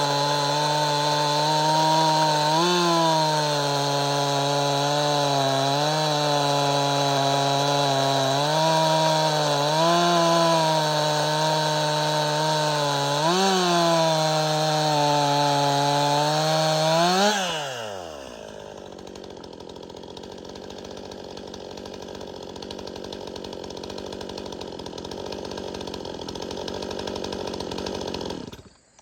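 Bone-stock Stihl MS261C two-stroke chainsaw running hard while cutting dry hickory, its pitch rising briefly about every three to four seconds. About 17 seconds in, the engine winds down and stops, leaving a quieter steady hiss.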